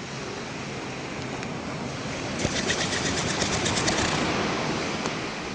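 A sleeping animal snoring: one long noisy breath that swells and fades, with a fast rattle of about eight clicks a second near its peak.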